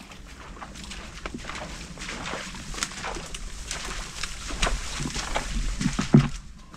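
Footsteps and bodies pushing through thick brush, with leaves rustling and twigs cracking, and a louder thump about six seconds in.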